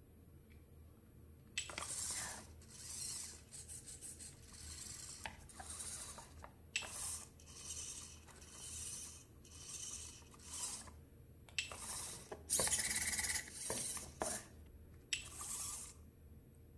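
Petoi Bittle X robot dog's servo motors whirring in a series of short bursts, about one a second, as its legs move through push-ups, with a few light clicks among them. The bursts start about a second and a half in and stop shortly before the end.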